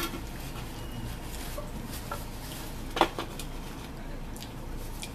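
A few light clicks and taps at the table, then about three seconds in one sharp knock as a clear plastic napkin holder is set down on a wooden tabletop, over a low steady room hum.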